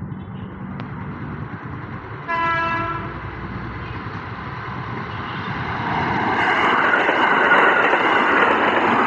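Train sounding one short horn blast about two seconds in, while its running noise grows steadily louder as it approaches.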